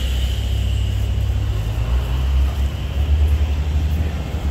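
City street ambience beside a busy avenue: a steady low rumble of passing road traffic.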